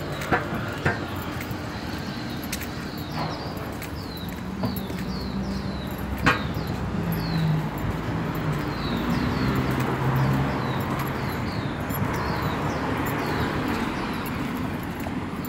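Car traffic driving past on a street, the engine and tyre noise swelling about halfway through as a car passes close. Birds chirp over and over with short falling notes, and a few sharp clicks sound near the start.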